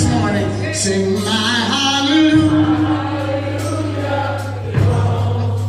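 Gospel choir singing with a steady low instrumental note underneath.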